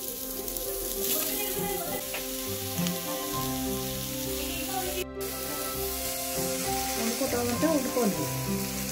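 Sliced onions sizzling in oil in a kadai, a steady hiss, with background music of held notes over it and a brief break about five seconds in.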